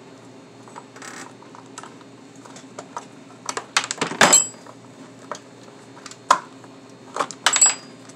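Scattered clicks and light metal-and-plastic clatter of hand work on a backpack blower's recoil starter: a T-handle Torx tool and the bolts being handled and the recoil cover lifted off. The busiest clatter comes about four seconds in, with another short burst near the end.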